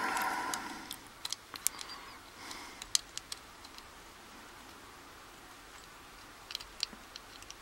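Scattered sharp clicks and light taps of small metal padlock parts and tools being handled, a cluster in the first three seconds and a few more near the end, with a quieter stretch between.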